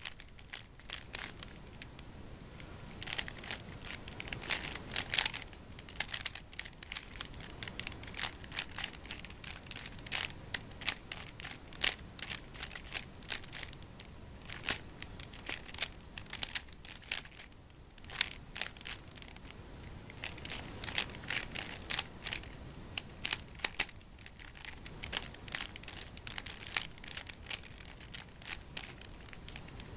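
Plastic Rubik's cube being turned by hand during a timed solve: quick, irregular clicking and scraping of the layers, in flurries of turns broken by short pauses.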